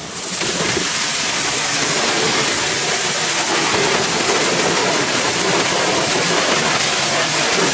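Pressure washer spraying water in a steady, loud hiss.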